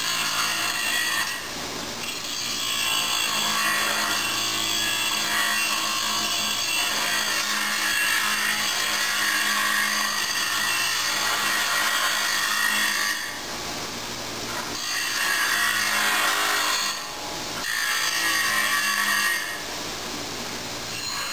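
An 8-inch bench grinder's wheel grinding the square corners off a steel plate, a harsh, steady grinding in long passes. Twice in the second half, and again near the end, the grinding eases off and leaves the grinder's motor running on its own.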